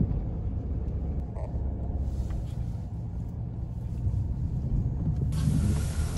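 Car driving on a wet residential street, heard from inside the cabin: a steady low rumble of engine and road noise, with a hiss joining about five seconds in.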